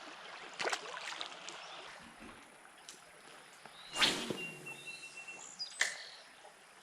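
Fishing rod being cast, a sharp swish about four seconds in, with a few light clicks of tackle handling before it. A thin steady tone follows the swish for about a second.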